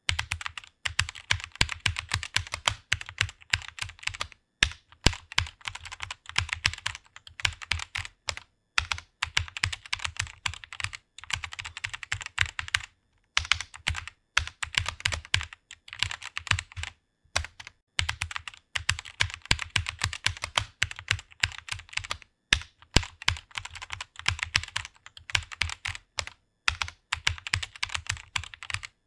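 Fast typing on a computer keyboard: rapid runs of keystrokes, broken every few seconds by brief pauses.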